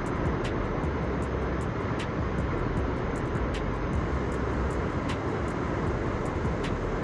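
Steady rushing of a large waterfall, Niagara's American Falls, a dense low roar of falling water. Many faint, short high ticks are scattered over it.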